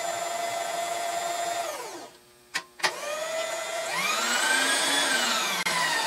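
Electric power feed motor driving a Bridgeport milling machine table, running with a steady whine, then cutting out and winding down to a stop about two seconds in. Two sharp clicks follow, and the motor starts again, its whine rising in pitch and then easing off.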